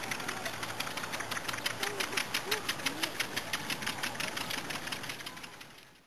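A small engine running with a rhythmic knocking, about five knocks a second, with faint distant voices under it. The sound fades out near the end.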